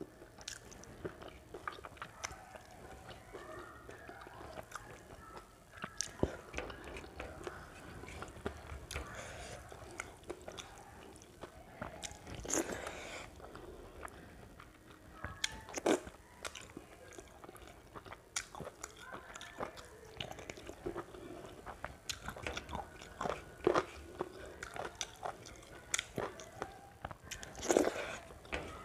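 Close-up chewing and wet mouth sounds of a person eating rice and curry by hand, with irregular short clicks and a few louder ones scattered through.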